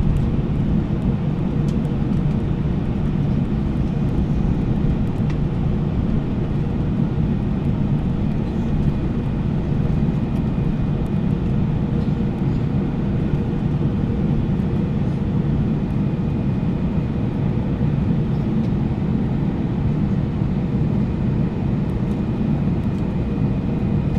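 Airbus A321-200 cabin noise with the engines at idle while taxiing after landing: a steady low rumble with a faint constant hum.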